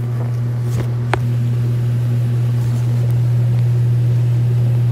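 Refrigeration unit of a walk-in cooler running with a steady low hum, with one short click about a second in.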